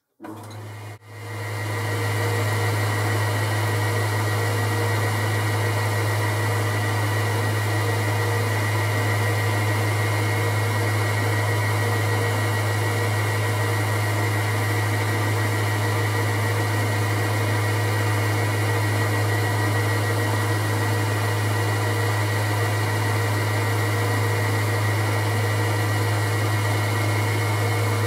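Boxford metal lathe starting up about a second in and then running steadily, with a strong low hum and a higher steady whine, while the chuck spins a small aluminium part for turning.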